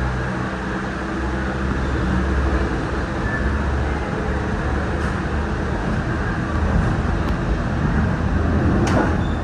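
Disney Skyliner gondola running: a steady low rumble and hum of the moving cabin and its cable machinery, with one sharp knock a little before the end.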